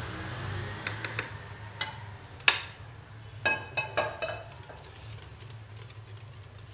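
A metal utensil stirring thick yogurt in a glass bowl, clinking against the glass about eight times. The loudest clink comes about two and a half seconds in. A low steady hum runs underneath.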